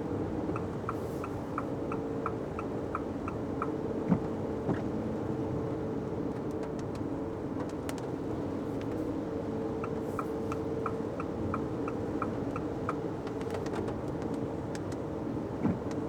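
Steady engine and road noise inside a Fiat 500X on the move, with the turn-signal indicator ticking about three times a second for some three seconds near the start and again a little past the middle. A few sharp knocks cut through, the loudest about four seconds in.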